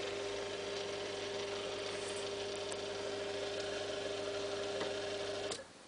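Create RC5-3 antenna rotator's electric motor and gearbox running with a steady whine and hum. It is freshly overhauled and greased and turning smoothly, then cuts off suddenly about five and a half seconds in.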